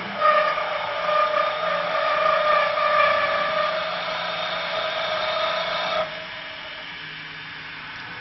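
Mini CNC wood lathe cutting a spinning wooden blank: a steady cutting noise with a whine, which cuts off about six seconds in, leaving the machine running more quietly.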